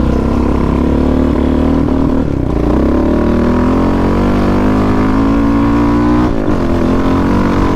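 Yamaha Raptor 700 quad's single-cylinder four-stroke engine running under way, its pitch climbing slowly as it pulls. Near the end it drops sharply for a moment as the throttle comes off, then picks up again.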